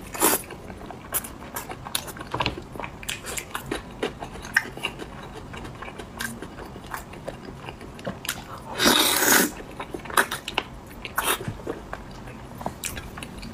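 Close-up mouth sounds of biting and chewing braised skin-on pork: a run of short, wet smacks and clicks, with one louder, longer burst about nine seconds in.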